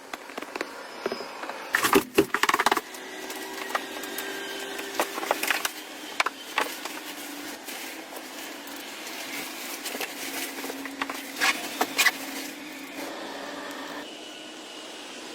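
Irregular knocks and clatters, loudest in clusters about two seconds in and again near twelve seconds, over a steady hiss.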